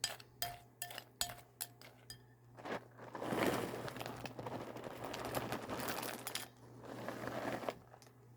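A metal spoon clinking against a cereal bowl about two to three times a second, some strikes ringing briefly, then about five seconds of scraping, rustling noise as the spoon works through the cereal and milk.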